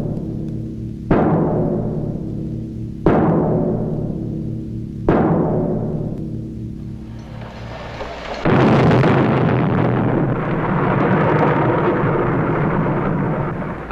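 Orchestral film-score music: three heavy drum strokes about two seconds apart, each ringing out over held chords, then a loud, sustained swell from about eight and a half seconds in.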